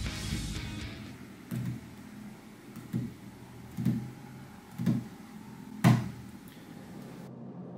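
Five dull taps on a tabletop, about a second apart, the last loudest and sharpest.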